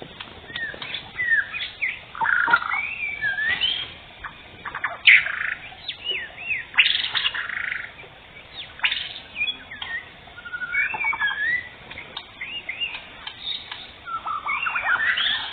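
White-rumped shama (murai batu) singing: a long run of varied whistled phrases with sweeping rising and falling notes, broken by short pauses.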